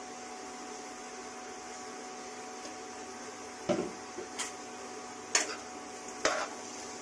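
Steady hum of a running induction cooktop. From about four seconds in, a spatula knocks and scrapes against the pan several times as diced raw papaya is stirred.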